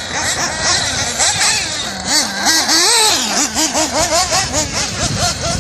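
Radio-controlled car's motor revving up and down rapidly over and over, its pitch swinging with each throttle blip.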